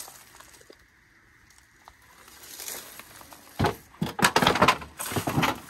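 A burst of crackling, rustling noise begins about three and a half seconds in and lasts roughly two seconds, after a quiet start.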